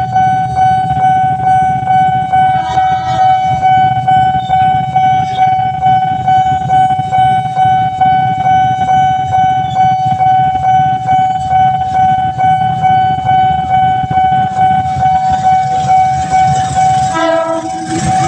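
A train passing over a railway level crossing, its wheels and running gear rumbling, while the crossing's alarm sounds one steady high tone throughout. A short horn-like sound comes about three seconds in and again near the end.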